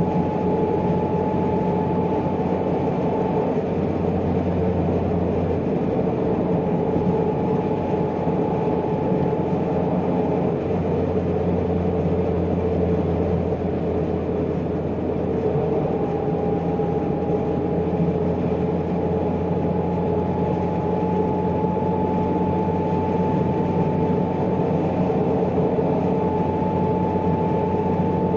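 Toyota MR2 (SW20) mid-mounted four-cylinder engine running steadily while driving, heard from inside the car with tyre and road noise. One engine tone fades out about ten seconds in and returns about six seconds later, then rises slowly.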